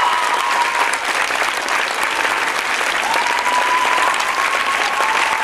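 Theatre audience applauding, a dense, steady clapping from many hands.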